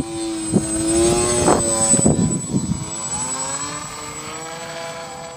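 Twin brushless motors (Grayson Hobby 2212, 1400 kV, on 8x3.8 APC propellers) of a Skywalker RC plane whining in flight. The whine is loudest during the first half; about three seconds in its pitch slides and it fades.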